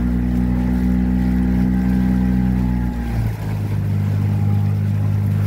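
A small riverboat's motor running steadily underway. About three seconds in, its note drops lower and then holds.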